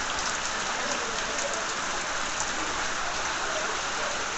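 Steady, even rush of water, from heavy rain or floodwater, with faint voices in the background.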